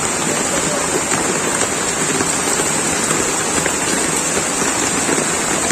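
Heavy rain pouring down in a steady, even rush, mixed with running floodwater.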